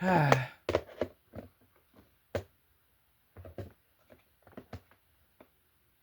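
A brief voiced sound falling in pitch at the start, then about a dozen irregular light knocks and clicks of hand tools being handled, with short gaps between them.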